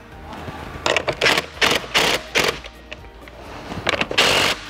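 Cordless drill driving 1/2-inch bolts to snug them up, in a string of short bursts, then a longer whirring run near the end.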